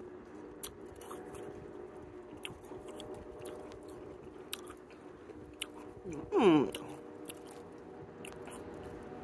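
Biting and chewing a chunk of packed, icy snow: scattered sharp, crisp crunches. About six seconds in, a short loud voiced 'mm' with a gliding pitch.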